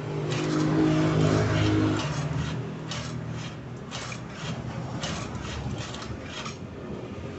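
Steel levers and linkages of a homemade manual rice transplanter worked by hand, giving a string of irregular metal clicks and light rattles. Under them runs a motor vehicle's engine, loudest in the first two seconds and then fading.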